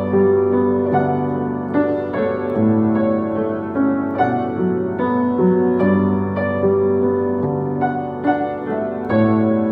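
Solo acoustic piano playing a slow, lyrical melody over held low bass notes and chords.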